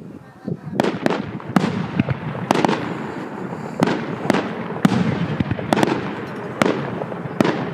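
Fireworks display: a rapid, irregular run of sharp bangs, somewhat fewer than two a second, starting about a second in, each trailing off in an echo.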